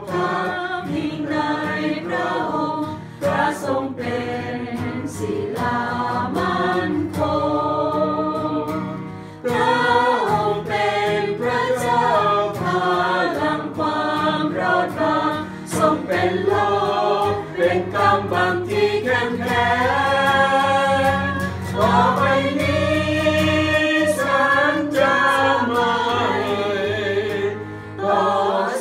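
A small group of women singing a Thai hymn together from hymnbooks, with short breaths between phrases.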